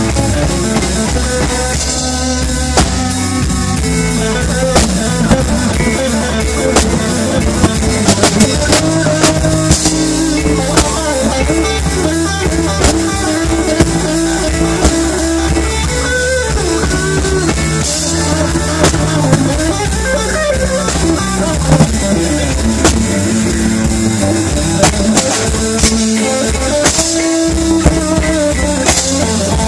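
Live blues band playing an instrumental passage: a Strat-style electric guitar plays lead lines with bent notes over electric bass and a drum kit keeping a steady beat.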